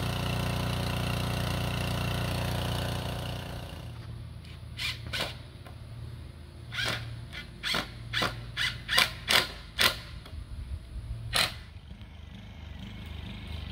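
Small gasoline engine of a portable water pump running steadily, pumping water through a hose to jet a wooden dock post into the sandy lake bottom; it cuts off after about three and a half seconds. Then a dozen or so sharp, irregular knocks.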